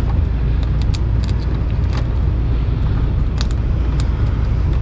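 A steady low rumble, with a scattered run of small clicks and light rattles as hands work wiring overhead.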